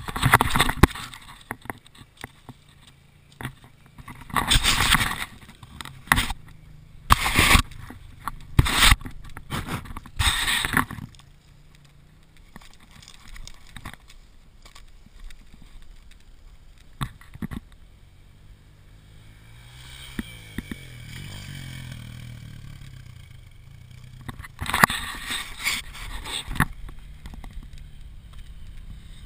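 Loud scrapes and knocks from the camera being picked up and handled, then a dirt bike engine revving up and down at a distance from about twenty seconds in, with more handling noise near the end.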